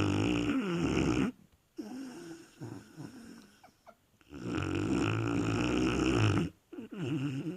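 A dog snoring in deep sleep: two long, loud snores about four seconds apart, with softer breathing sounds between them and a shorter snore near the end.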